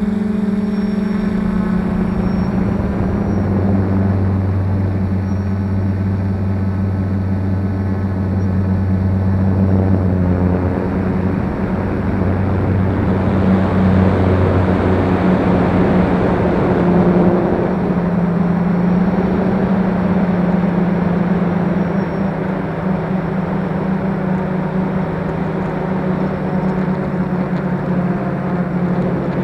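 F450 quadcopter's brushless motors and propellers humming steadily, the pitch drifting up and down as the throttle changes, with a rougher, louder stretch around the middle.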